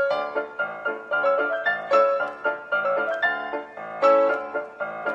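Background music: a piano playing a light melody of quick, separate notes.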